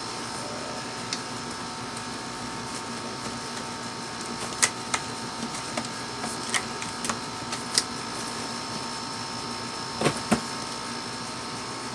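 Cardboard and plastic laptop packaging being handled and opened: scattered light clicks and taps through the middle, then two louder knocks near the end, over a steady room hum.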